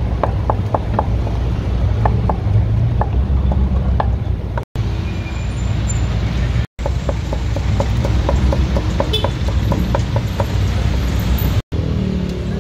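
Cleaver chopping grilled pork on a wooden chopping block in quick, short knocks, several a second, pausing for a couple of seconds midway. A steady low rumble of street traffic runs underneath.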